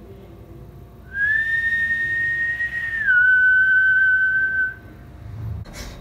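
A person whistling two long held notes, the second a little lower, the first starting about a second in and the second ending near the end.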